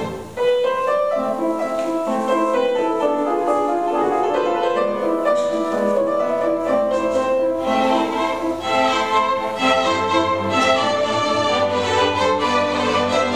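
Piano and string orchestra playing classical music together, with piano notes over bowed violins and cellos. After a brief break in the sound just at the start, the music comes back in about half a second in and carries on steadily.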